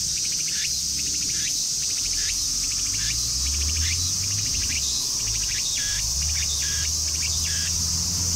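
A cicada singing a bird-like song: a short, rapidly pulsing call repeated about once or twice a second, coming faster near the end, over the steady high hiss of other cicadas.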